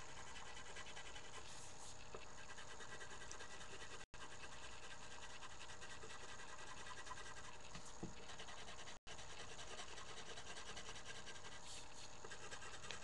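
Colored pencil scratching on paper as a drawing is shaded in, faint over a steady hiss. The sound cuts out completely for an instant twice, about four and nine seconds in.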